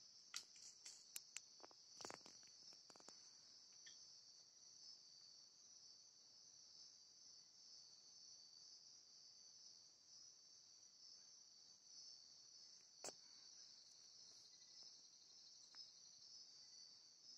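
Faint, steady high-pitched chorus of night insects. A few sharp clicks come in the first three seconds, and one more about thirteen seconds in.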